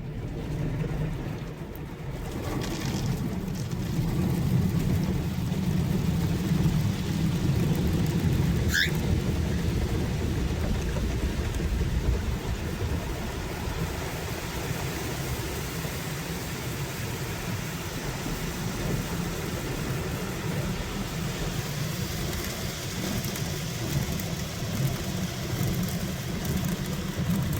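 Automatic car wash heard from inside the car: a steady low rumble of machinery with water spraying on the body. A single short rising whistle about nine seconds in.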